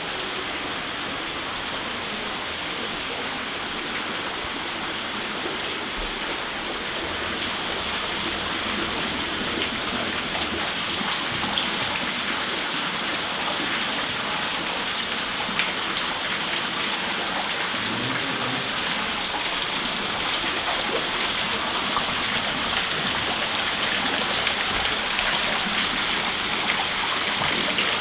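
Water pouring in sheets from the roof and down the brick wall of a tunnel, splashing onto the stone floor: a steady rushing patter that slowly grows louder.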